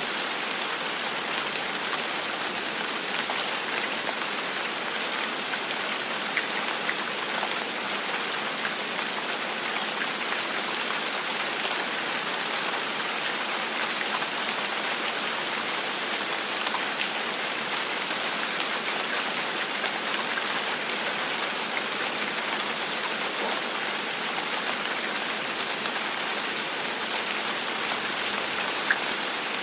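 Steady gentle rain falling, an even hiss of rain with the odd distinct drop ticking through it.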